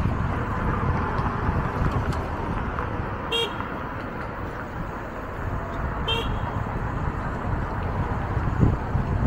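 Two short horn beeps about three seconds apart, over a steady low rumble of street traffic.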